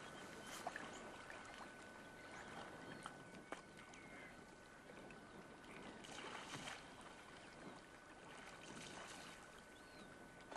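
Faint wash of the sea against shore rocks under a steady hiss, with a thin steady high tone and a few small clicks; a little louder about six seconds in.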